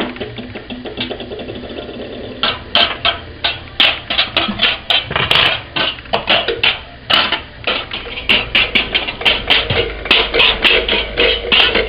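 Kitchen utensils tapped and knocked together as improvised percussion. Light, quick tapping at first, then irregular sharp knocks and clatters from about two and a half seconds in, coming faster toward the end.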